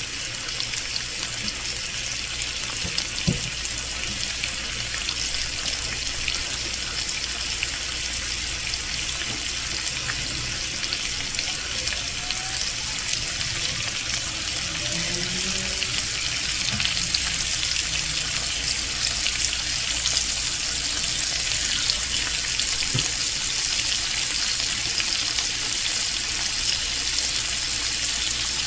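Bacon frying: a dense, steady sizzle full of tiny crackles and pops, slowly getting a little louder.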